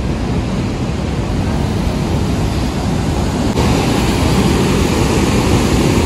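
Elk Falls waterfall's steady rush of falling water, growing louder and brighter about three and a half seconds in.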